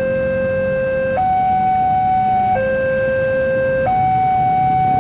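Indonesian railroad level-crossing warning alarm: an electronic two-tone signal switching between a lower and a higher tone about every 1.3 seconds, the warning that a train is approaching and the barrier is closed. Waiting vehicles' engines make a low rumble underneath.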